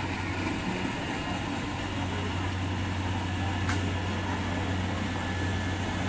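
Kubota combine harvester's diesel engine running at a steady pitch as the machine cuts rice, a constant low hum.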